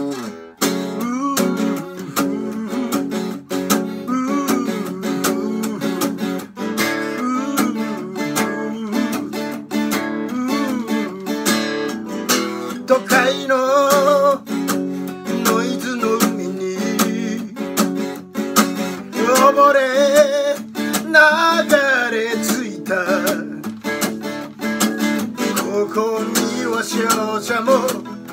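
A steel-string acoustic guitar strummed hard and steadily in a fast rock rhythm, with sharp strokes all through, as an instrumental passage of a solo guitar-and-vocal song. A voice sings over it in places, most clearly around the middle.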